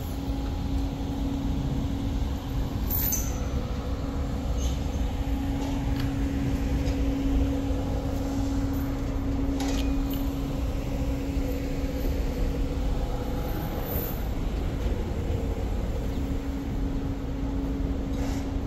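Low rumble of street traffic, with a heavy vehicle's engine giving a steady drone and a few light clicks.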